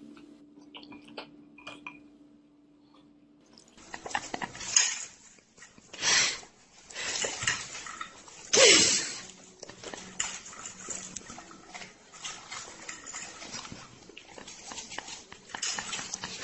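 Dog eating from a plate, with a fork clinking on the dish and several loud breathy bursts, one of them falling in pitch, about 5, 6 and 9 seconds in. Before that, faint clicks over a low steady hum.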